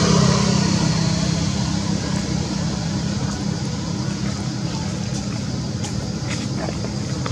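Steady low engine hum of a motor vehicle, easing off a little over the first couple of seconds, with a few faint clicks in the later seconds.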